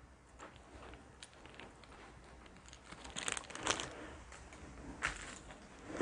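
Faint rustling and light clicks of small cardboard board-game tokens being handled, with louder rustles about three seconds in and again near five seconds.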